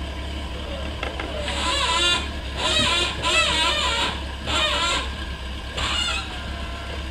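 Raised voices calling out in short, strained bouts, five times between about one and a half and six seconds in, over a steady low rumble.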